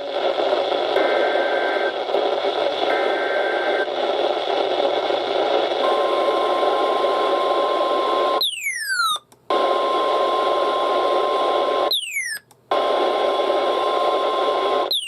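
Weak, static-filled NOAA Weather Radio reception of an incoming alert: two faint EAS header data bursts about a second long, then the steady warning alarm tone under the hiss. The tone is broken twice by a sharp falling chirp and a brief cut-out of the signal.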